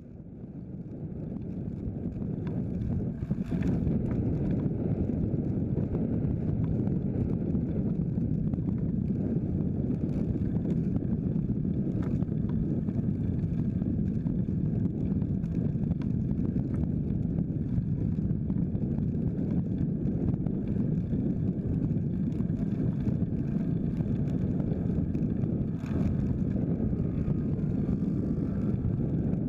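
Steady wind rumble on the microphone of a camera riding on a moving folding bike, fading in over the first few seconds.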